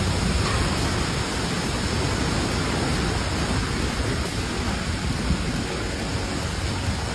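Strong wind gusting during a sandstorm, blowing steadily across the phone's microphone with a loud, rumbling rush.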